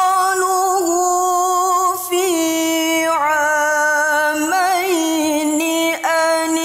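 A woman recites the Quran in melodic tilawah style in maqam Nahawand, holding long notes with quick wavering ornaments. There is a brief break about six seconds in.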